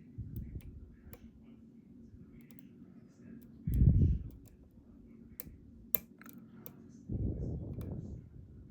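Light, irregular clicks and ticks of a lock pick working the pins and sliders inside an EVVA ICS dimple lock. Two louder, dull low thumps of handling come about four seconds in and again about seven seconds in.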